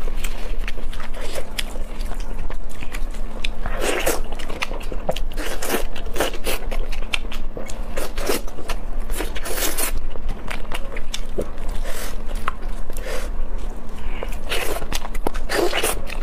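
Close-miked eating of saucy glazed pork ribs: biting and chewing, with wet, sticky mouth clicks coming at irregular moments throughout.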